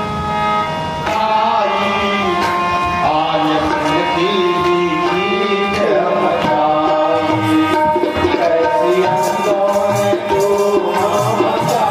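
Harmonium playing a melody in held notes and chords. Percussion strokes join about seven seconds in and keep a steady beat.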